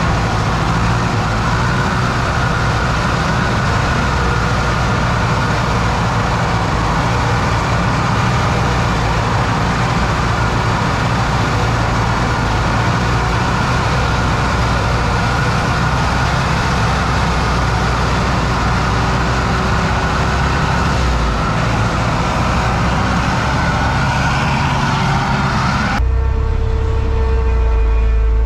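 Tatra 148 truck's air-cooled V8 diesel running steadily. About two seconds before the end it cuts off abruptly into music with long held tones.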